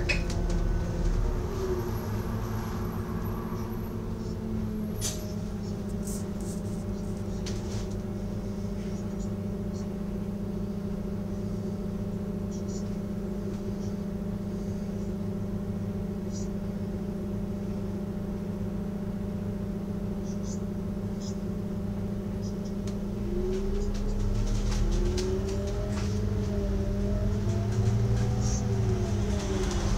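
A bus engine idling steadily, heard from inside the bus while it waits at red traffic lights. Roughly three quarters of the way through, the engine gets louder and its pitch rises and falls as the bus pulls away.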